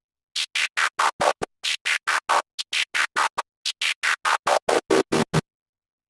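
Synthesizer patch on Ableton Live's Analog instrument playing a Transformers-style transform effect: rapid choppy pulses, about five or six a second, cut on and off by a rectangle-wave LFO and smoothed by a chorus effect. The pulses come in four bursts, each sliding downward in pitch.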